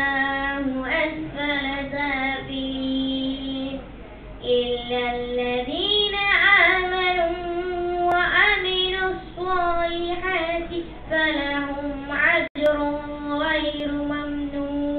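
A boy's solo Quran recitation, chanted melodically in long held phrases with sliding, ornamented pitch, with short breaks for breath between phrases.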